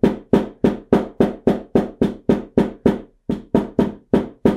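A hammer tapping steadily on a thick, folded seam of layered fabric on a wooden tabletop, about three blows a second with a brief pause a little past halfway. The hammering flattens the bulky seam so the sewing machine needle will pass through it more easily.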